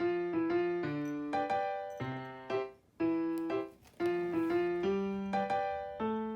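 Background music: a light, bouncy keyboard melody of short, quickly fading notes, with brief pauses between phrases.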